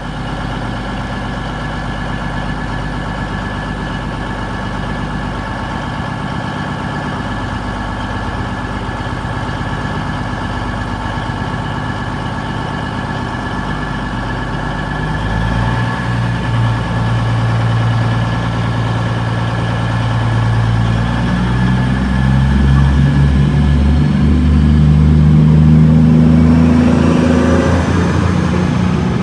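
CrossCountry Voyager (Class 220/221) diesel-electric multiple unit, its underfloor diesel engines running steadily at idle, then powering up about halfway through as the train pulls away, the engine note growing louder and deeper. A faint rising whine comes in near the end.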